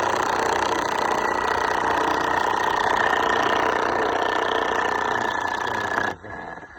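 Chainsaw engine running loud and steady, then cutting off suddenly about six seconds in.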